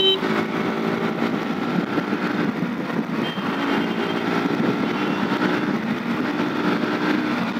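Bajaj Pulsar NS160 single-cylinder engine pulling steadily as the bike accelerates on an open road, with wind rushing past the rider's microphone.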